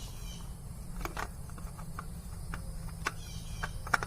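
Scattered light clicks and taps of a new oil filter being handled and fitted onto a motorcycle engine, over faint insect chirping and a low steady hum.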